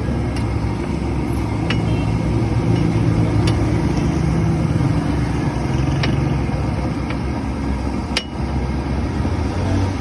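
Street-food stall ambience: a steady low rumble, with a handful of short sharp clinks, the loudest about eight seconds in.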